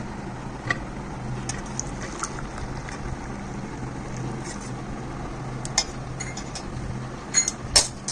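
Hot kadha being poured from a pan through a strainer into a cup: a steady pour of liquid, with a few sharp metal clinks, the loudest near the end.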